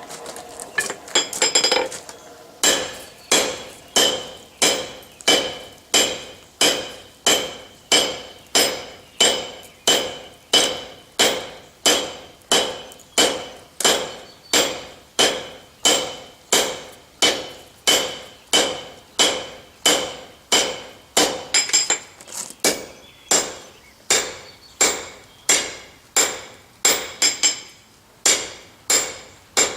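Blacksmith's hammer striking hot bar stock on an anvil, drawing a point on the end of the bar. After a few quick blows, the strikes settle into a steady rhythm of about three every two seconds, each with a bright metallic ring.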